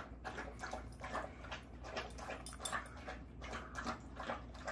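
Chow chow licking out an emptied food bowl: a run of quick, irregular licks and light clicks of tongue on the bowl.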